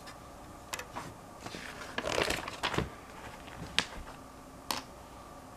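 Plastic Lego bricks clicking and tapping as a half-built model is handled and turned in the hands: scattered light clicks, with a short cluster about two seconds in.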